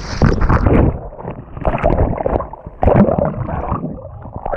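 Sea water splashing and gurgling around a handheld action camera at the waterline, as a rider thrown off a banana boat thrashes in the waves. The sound is muffled, coming in about three surges as the camera dips in and out of the water.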